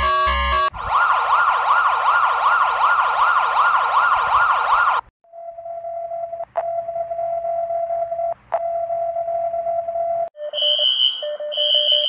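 Electronic alarm sounds: a short stretch of chiptune music cuts off, then a synthesized siren tone warbles quickly up and down for about four seconds. After a brief break comes a steady electronic tone broken by two clicks, and near the end a run of pulsed electronic beeps.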